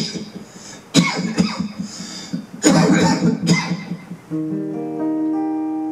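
Acoustic guitar music: a few sharp strummed strokes, then a chord that sounds about four seconds in and rings on.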